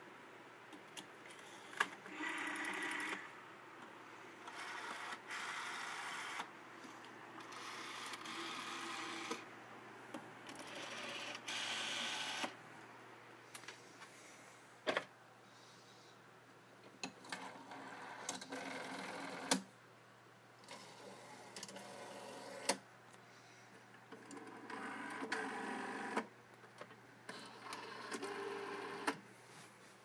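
Rotary telephone dials being turned and let go, each one whirring back for one to two seconds, about eight times, with sharp clicks in between.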